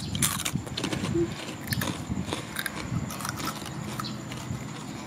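Crunchy snack being bitten and chewed close up: a run of short, crackly clicks and crunches.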